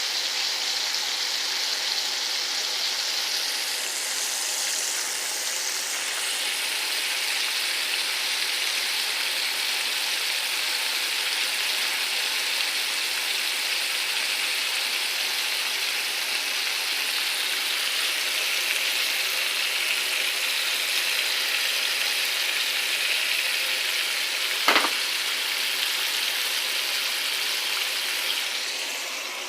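Flour-coated ribs frying in hot oil, a steady sizzle, with a single sharp click about 25 seconds in.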